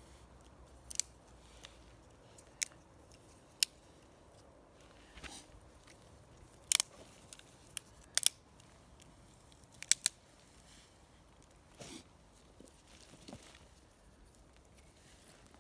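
Dry wood or kindling snapping and crackling: sharp, separate cracks every second or so, several in quick pairs, over a faint steady background.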